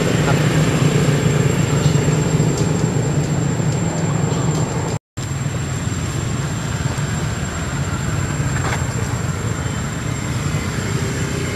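Steady low rumble of road traffic, with a brief dropout to silence about five seconds in.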